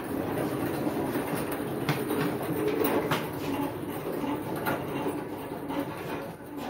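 Bare 1951 Chevy truck frame being pushed across a concrete floor on caster wheel dollies: a steady rolling rumble and rattle from the casters and loose frame parts, with a couple of sharp knocks about two and three seconds in.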